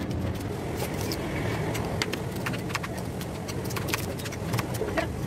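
Kitchen knife slicing onions on a plastic cutting board: sharp, irregular taps of the blade on the board, about one or two a second, over a steady low background hum.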